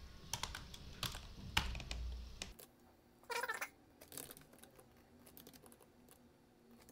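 Computer keyboard typing: a quick run of keystrokes for the first couple of seconds, then fainter scattered keystrokes, with one brief louder noise a little past three seconds in.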